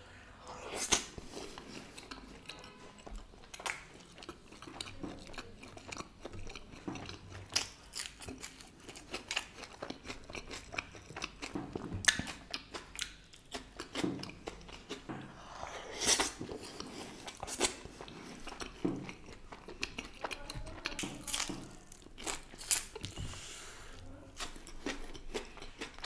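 Close-miked eating: a person chewing and smacking mouthfuls of food, with many sharp, irregular crunchy clicks.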